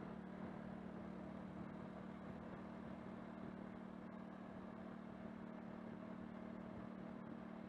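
Steady hum of a car engine with road noise while driving, unchanging throughout.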